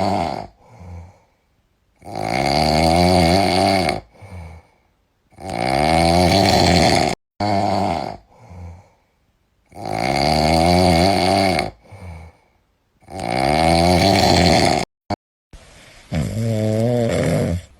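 A sleeping cat snoring loudly. Long snores of about two seconds each come roughly every three to four seconds, each rising a little in pitch, with shorter, softer breaths between. Near the end, after a brief break, one more snore plays over a steady hiss.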